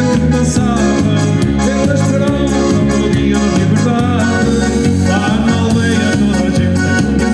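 Live band music with a steady, driving beat and a keyboard playing.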